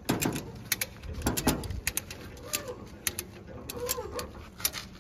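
Irregular sharp clicks and knocks, with faint cooing calls between them.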